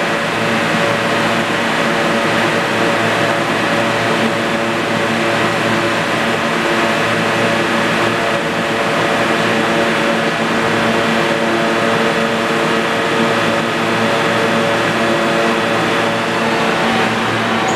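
R160A-1 subway train standing at the platform, its air-conditioning and auxiliary equipment running with a steady hum of several held tones over an even rush of noise.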